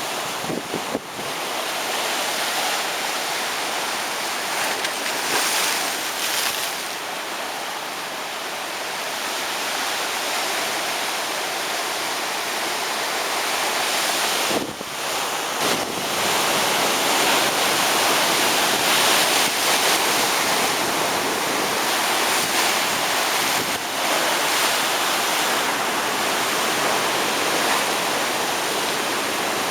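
Rough ocean surf breaking and washing up on a beach: a continuous rush of water noise that swells louder about halfway through.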